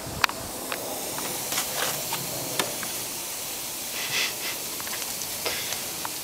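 Patties sizzling on a small portable charcoal grill: a steady hiss with scattered pops and clicks, the sharpest just after the start.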